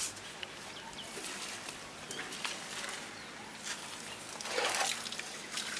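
Water from a hose splashing on wet, muddy ground, with a louder splash about three-quarters of the way in, over a steady noisy haze and a few short high chirps.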